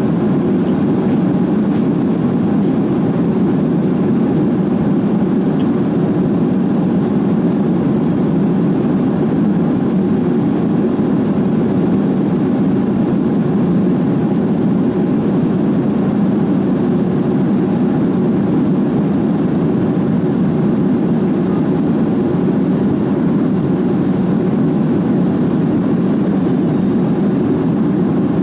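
Steady, even cabin noise inside an Airbus A340-600 airliner: the low rushing hum of its four Rolls-Royce Trent 500 engines and the airflow, unchanging throughout.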